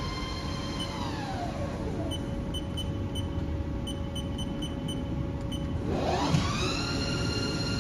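Haas TL3 CNC lathe spindle whining down as the spindle slows to a stop about a second in, then spinning back up about six seconds in with a rising whine that settles into a steady whine. A few short high ticks come while the spindle is stopped, over a steady machine hum.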